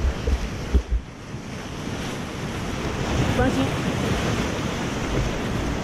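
Whitewater rapids rushing and splashing around a kayak as it runs the rapid, with wind buffeting the microphone. There are a few heavy thumps in the first second.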